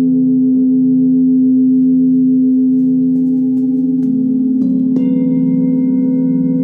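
Singing bowls ringing in sustained, overlapping tones that waver slowly. Several fresh strikes in the second half add new higher tones, the clearest about five seconds in.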